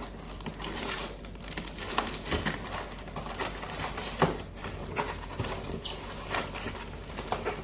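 Cardboard packaging rustling and scraping as an inner carton is pulled out of a large box, with scattered irregular knocks and crinkles.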